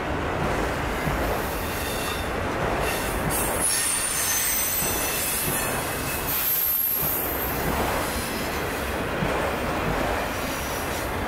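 Freight train of autorack cars rolling past close by: a steady rumble of wheels on rail, with brief high-pitched wheel squeals coming and going.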